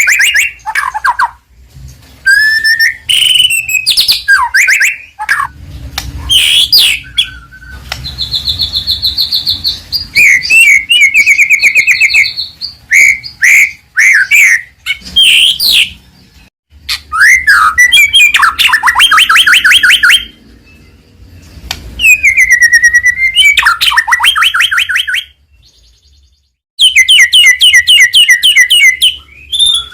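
White-rumped shama (murai batu) singing loudly in full 'gacor' form: varied phrases of sliding whistles and rapid trills of repeated notes, broken by short pauses. It has one longer pause near the end before a fast trill.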